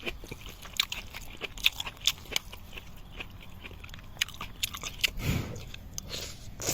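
A person eating noodles with bamboo shoots: chewing and crunching close to the microphone, with many small sharp clicks, and a brief louder noisy swell about five seconds in.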